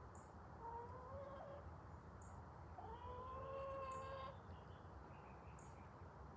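Two faint, drawn-out animal calls, the second longer and held steady for over a second, with short high chirps about every two seconds.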